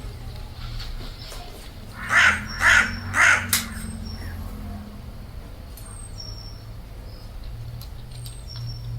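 A crow cawing three times in quick succession, about half a second apart.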